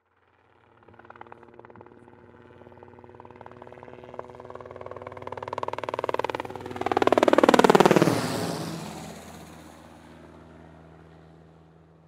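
A hydroplane passing by: its engine comes in about a second in and grows louder over several seconds, peaks near the end of the eighth second and drops steeply in pitch as it goes past, then fades away.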